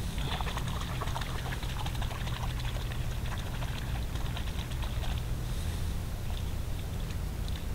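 A hand splashing and groping in the shallow water of a narrow paddy-field irrigation ditch: quick small splashes and patters, thinning out after about five seconds, over a steady low rumble.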